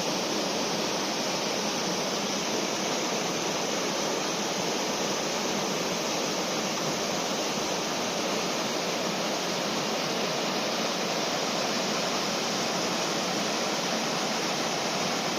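Waterfall on a moorland river, water pouring and splashing in a steady, even rush.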